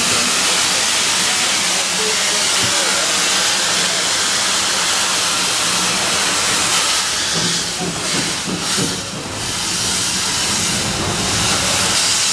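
Loud steady hiss of steam from the GWR Modified Hall steam locomotive 6990 Witherslack Hall, heard from its footplate as it moves slowly, thinning briefly about eight seconds in.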